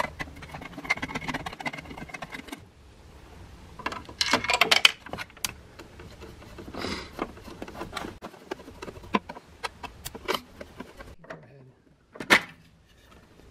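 Scattered clicks, taps and scrapes of a screwdriver working on the hard plastic covers and screws of a Keurig B40 coffee maker, with a louder cluster of clicks about four seconds in and another sharp burst near the end.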